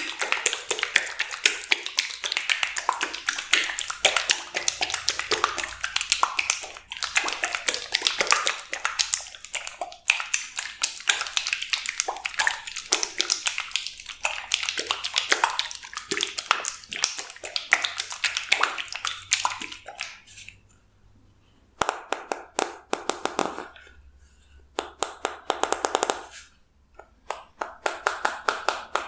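Fingers tapping rapidly on a plastic bottle, a dense run of crisp clicks. About twenty seconds in it stops briefly, then comes back in three short bursts.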